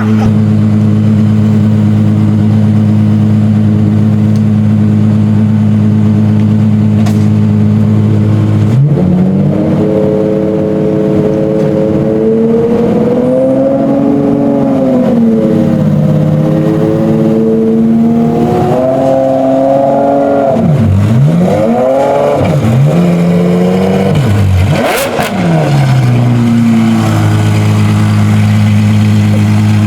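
A supercar's engine idling steadily, then revved several times from about nine seconds in. The first rev is one slow rise and fall in pitch, followed by quicker blips, before the engine settles back to a steady idle near the end.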